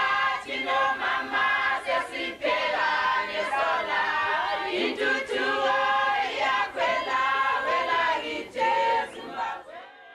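A crowd of people singing together, many voices in chorus; the singing fades out shortly before the end.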